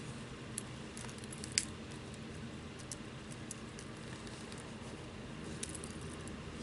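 A few faint, short metallic clicks and ticks from jewelry pliers gripping and closing a jump ring against glass beads, the sharpest about a second and a half in, over a steady low hum.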